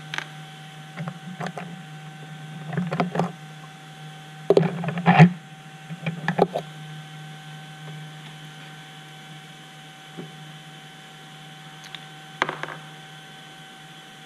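Hands handling small screws, a driver and a tube of Loctite on a workbench: a few short bursts of clicks and rattles, the loudest about a third of the way in and one more near the end, over a steady hum.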